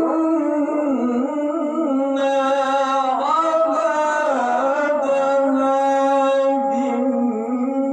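A male qari reciting the Quran in melodic tilawah style in a high voice, drawing out one long unbroken phrase with a wavering, ornamented pitch.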